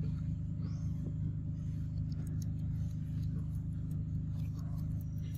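A steady low motor hum, unchanging in pitch, with faint scattered ticks and chirps above it.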